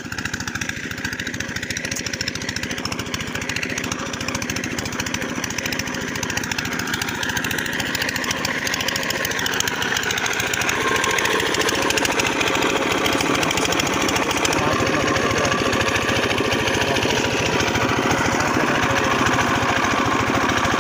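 Single-cylinder diesel engine of a Kirloskar irrigation water-pump set running steadily, growing louder about halfway through.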